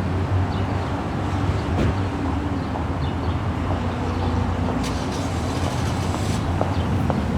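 A motor vehicle's engine running steadily with a low, even rumble, with scattered small clicks over it.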